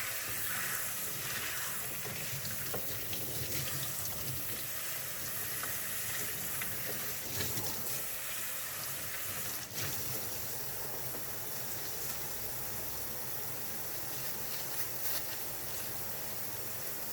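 Tap water running steadily into a sink, splashing over vacuum cleaner filter parts as they are rinsed, with a few light knocks of plastic parts.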